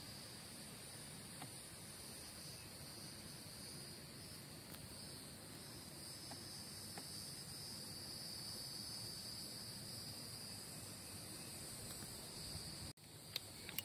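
Insect chorus from the creek-side vegetation: a steady high-pitched shrilling in two pitches. It cuts out abruptly near the end, followed by a couple of small clicks.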